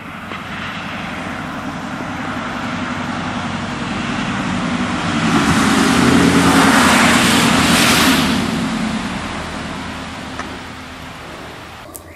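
A car passing by: its engine hum and tyre noise swell to a peak about seven seconds in, then fade away.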